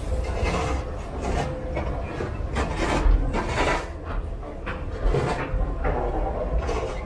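Escalator running: a steady low rumble with irregular rubbing and rattling noises.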